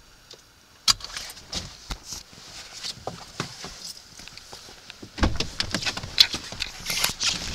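Handling noise inside a car: irregular clicks and knocks as the camera is moved about, with a louder thump about five seconds in as the car door is opened.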